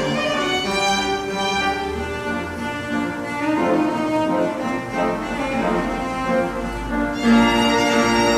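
Piano trio of piano, violin and cello playing a classical piece, the violin and cello holding long bowed notes over the piano; the playing grows louder about seven seconds in.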